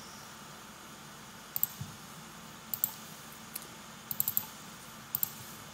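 Computer mouse clicking: scattered single clicks and quick double-clicks.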